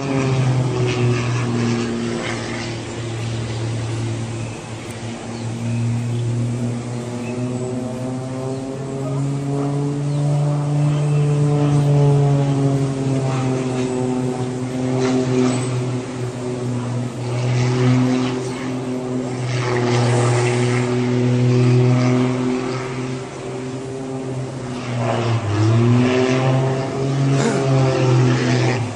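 Propeller aircraft engine running with a steady drone whose pitch drifts slowly up and down, dipping briefly about 25 seconds in. Hissy gusts come and go over it.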